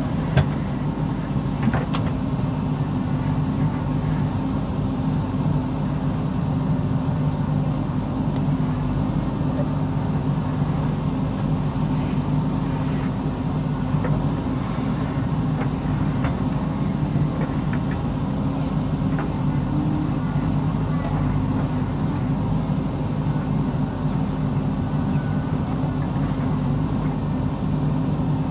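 JCB backhoe loader's diesel engine running steadily under load as the machine digs and loads soil, with a sharp knock just after the start.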